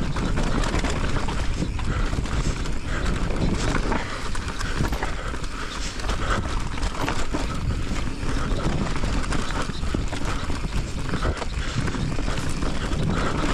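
Mountain bike clattering and rattling over a rough trail: an irregular run of knocks and clicks over steady tyre and rumble noise.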